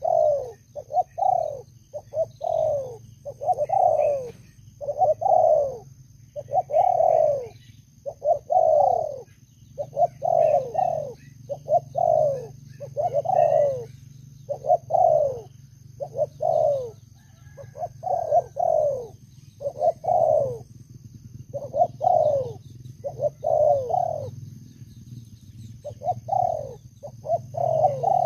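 Spotted doves cooing over and over, soft coos falling in pitch about a second apart in short runs, with brief pauses between runs.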